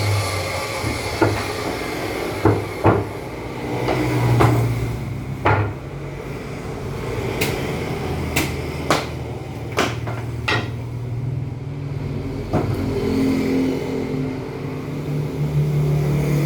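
Table saw motor running steadily with a low hum, with a dozen or so sharp knocks of wood against wood and metal spread through it.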